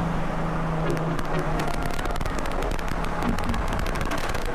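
A cammed Dodge Charger's 392 Hemi V8 running at highway speed, heard from inside the cabin with road and wind noise: a steady engine drone with a rapid crackling through most of it.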